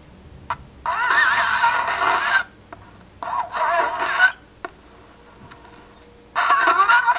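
A razor blade's edge riding the grooves of a spinning vinyl record, acting as a makeshift stylus: the record's music comes through as a thin, scratchy, warbling sound. It plays in three bursts as the blade is set down and lifted, with small clicks in the quiet gaps.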